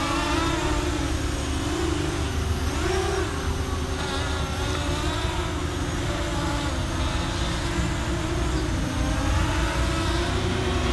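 Small FPV racing quadcopter's electric motors and propellers whining steadily in flight. The pitch rises and falls as the throttle is worked, most noticeably two or three seconds in.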